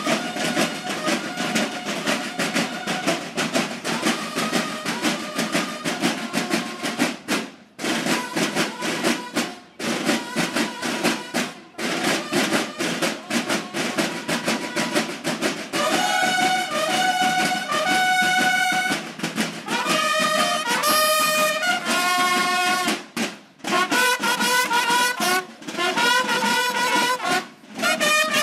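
Drum and bugle marching band playing: drums beat a rapid cadence, and about halfway through the bugles come in loudly with held fanfare calls over the drumming.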